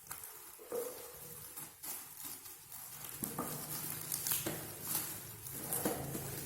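Irregular handling noise of an unboxing: scattered taps, clicks and rustles of cardboard and packaging as a boxed car speaker is taken out.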